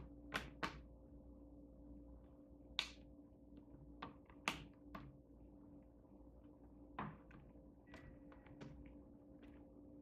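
Scattered light clicks and taps of a laptop's plastic display frame and screen being handled and pressed into place, about eight or nine irregular knocks, over a faint steady hum.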